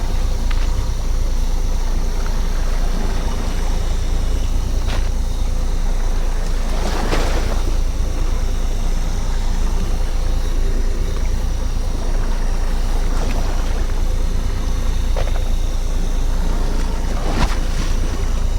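Fishing boat's engine running with a steady low rumble, with two short louder noises about seven seconds in and near the end.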